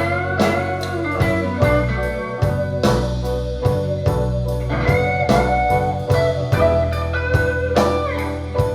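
Instrumental break of a vocal song played back through B&W 702 S3 loudspeakers: a lead guitar line with bending notes over a steady drum beat, without singing.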